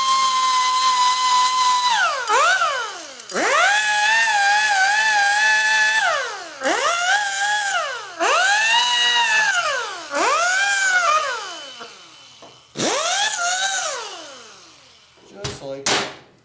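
Right-angle air grinder grinding steel in repeated runs of one to three seconds: a high whine with a hiss of exhaust air, rising as it spins up and falling away each time the trigger is released. A few light metal clinks near the end.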